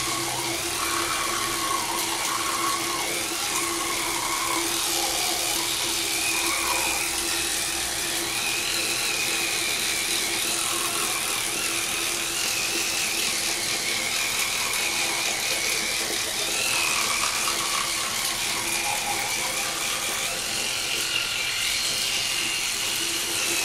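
Electric toothbrush humming steadily as it brushes the molars, with a scratchy scrubbing noise over the hum.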